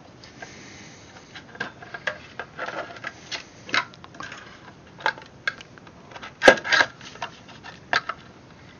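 Irregular small clicks, taps and knocks of hands handling a taillight bulb plate with its bulbs and seating it in a 3D-printed plastic taillight housing. One sharper knock comes about two-thirds of the way in.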